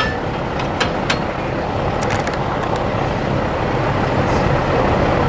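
Steady rushing background noise with a few sharp metallic clicks in the first three seconds, as a steel hex Allen wrench and hands knock against the hay rake's bearing holder and bar.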